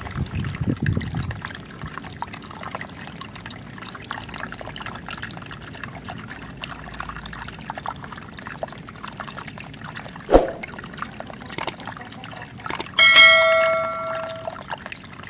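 Water trickling and splashing steadily from a small waterfall. Late on come a few sharp knocks, then a single clear bell-like ring that dies away over about a second and a half.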